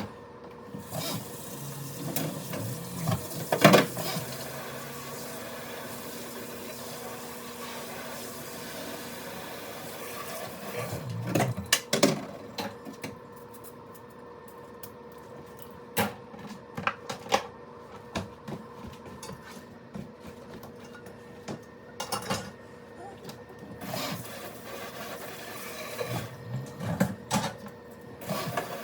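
Kitchen clean-up: dishes, utensils and containers knocked and set down in scattered clatters, the loudest about four seconds in and again near twelve seconds, over a steady hum.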